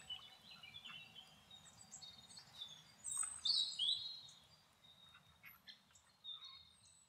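Wild songbirds chirping and calling, short high chirps and a few falling calls, loudest about three to four seconds in, over a faint low background rumble.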